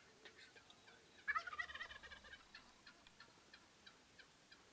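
Merriam's wild turkey tom gobbling once, about a second in: a sudden, rapid rattling call lasting about a second.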